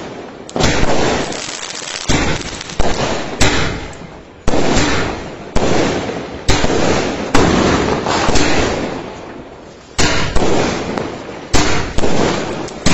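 Aerial fireworks bursting one after another, about a dozen sharp bangs roughly a second apart, each fading away in an echo.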